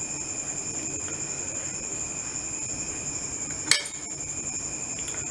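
A single sharp metallic clink about three and a half seconds in, as a metal serving spoon knocks against the metal kadai while gravy is being served. A steady high-pitched tone runs underneath.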